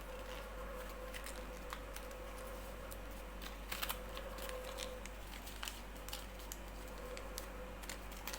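Origami paper being folded and creased by hand: scattered small crinkles and taps, with a louder cluster about four seconds in, over a faint steady hum.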